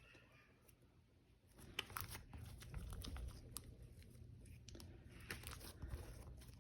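Jelly-textured slime being stretched and squished by hand, giving faint sticky clicks and crackles that start about a second and a half in.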